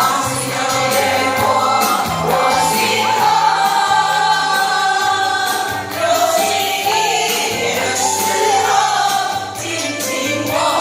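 A choir singing a song in unison over instrumental accompaniment with a steady bass line.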